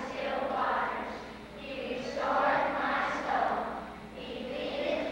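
Children's choir singing together, many young voices in sustained phrases that swell and fall back in loudness.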